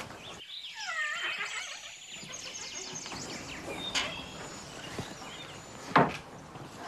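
Creaking wooden door, falling in pitch for about a second and a half, then a light tap about four seconds in and a loud thump about six seconds in.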